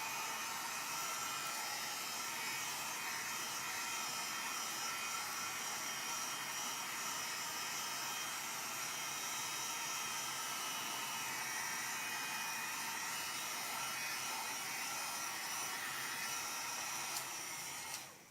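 Heat gun blowing steadily on a raised setting while it shrinks shrink-wrap film around a multi-pack. It is switched off near the end and dies away over about a second.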